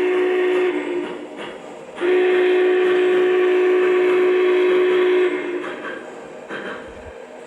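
O gauge model train's electronic sound system blowing its horn: a blast that ends just under a second in, then a second, longer steady blast of about three seconds.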